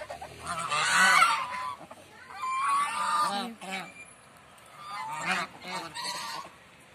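A flock of white domestic geese honking in three loud bouts with short pauses between them.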